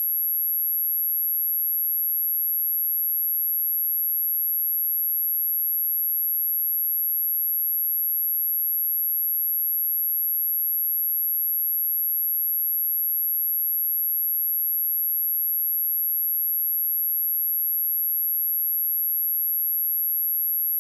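A steady pure sine-wave test tone at 11616 Hz, one very high unchanging pitch at constant level, used to test speakers and shake dust and water out of them.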